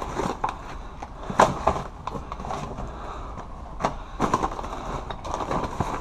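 Papers, photos and cards rustling and crackling in a cardboard box as gloved hands rummage through them, with irregular sharp crinkles and knocks, the sharpest about a second and a half in.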